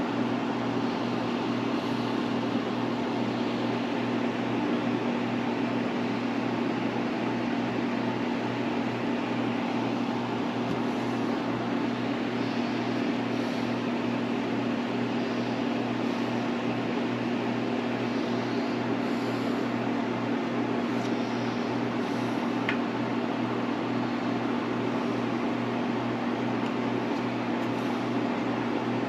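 Steady hum of a running fan-type electric appliance: a constant low drone under an even hiss. A few faint light ticks now and then.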